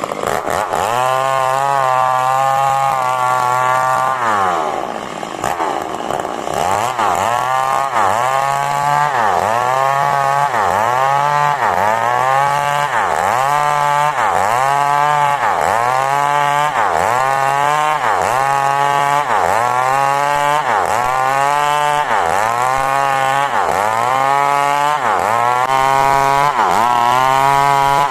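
Two-stroke chainsaw cutting through coconut-palm wood to rip it into boards. The engine runs high at first and sags for a moment a few seconds in. After that its pitch dips and climbs back about once a second, in an even rhythm, as the chain works through the wood.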